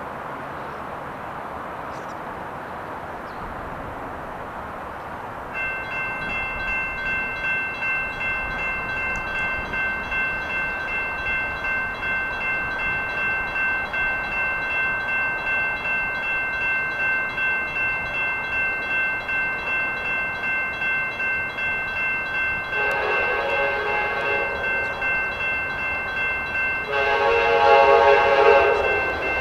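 A steady background rush. About five seconds in, a railroad crossing's warning bell starts ringing in a steady, even rhythm and keeps on. Near the end, an Amtrak F40PH locomotive's horn sounds two long blasts as the train approaches the grade crossing.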